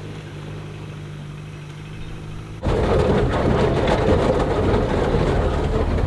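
Car driving with a steady engine and road hum. About two and a half seconds in it cuts suddenly to a much louder, rough rushing rumble.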